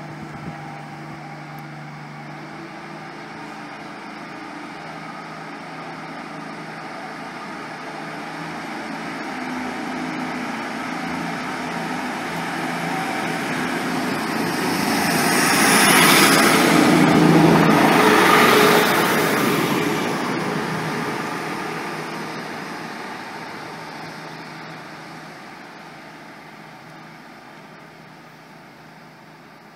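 Class 150 Sprinter diesel multiple unit running past along the platform line. Its diesel engine note and the noise of its wheels on the rails build up, are loudest a little over halfway through, then fade as it moves away.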